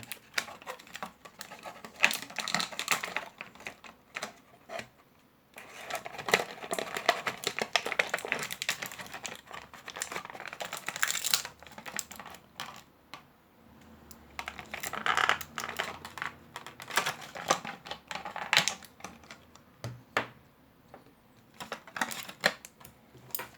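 An action figure's cardboard box and plastic tray being opened and handled: irregular clicks, taps and crinkles of plastic and card, coming in busy clusters with short pauses between.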